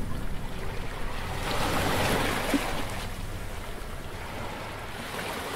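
Logo-reveal sound effects: an airy whoosh over a low rumble, swelling about a second and a half in and then fading away.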